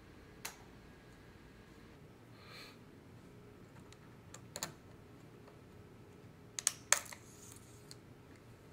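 Sharp small plastic clicks from a MacBook Pro keycap and its scissor mechanism being worked: one click about half a second in, another near the middle, and a quick double click about two-thirds through, the loudest.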